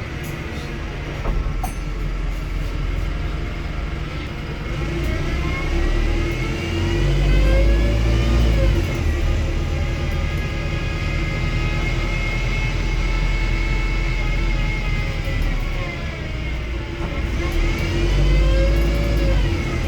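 Wrightbus StreetDeck HEV double-decker bus under way, its Mercedes-Benz OM934 four-cylinder diesel running with a Voith gearbox. A drivetrain whine climbs in pitch as the bus pulls away, drops sharply about nine seconds in, holds steady, then rises and falls again near the end over a constant low rumble.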